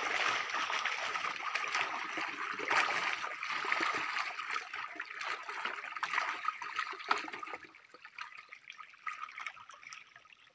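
Many fish thrashing and splashing in a net fish trap as it is lifted, with water running and splashing off the net. The splashing dies down about eight seconds in.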